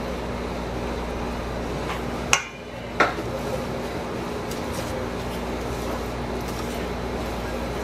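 A metal spoon stirring oil into a flour and yogurt batter in a stainless steel mixing bowl, with two sharp clinks about two and a half and three seconds in. A steady background hum runs underneath.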